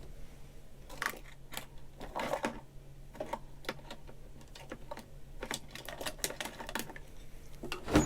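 Irregular light clicks, taps and rustles of hands working a small sewn fabric piece, turning it right side out and poking out its corners.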